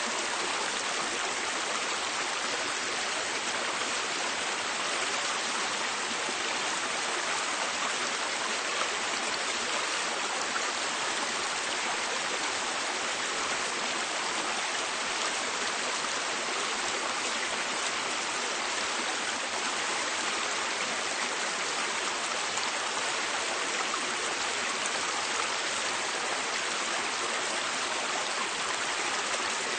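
River water flowing and rushing, a steady, even roar of water.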